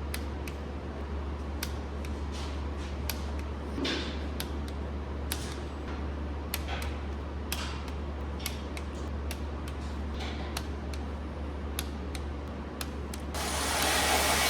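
Ratcheting torque wrench tightening the 4 mm Allen-head oil gallery gasket bolts on a Nissan VQ35DE engine: irregular ratchet clicks with a few brief scrapes. Near the end comes a loud hiss of about two seconds.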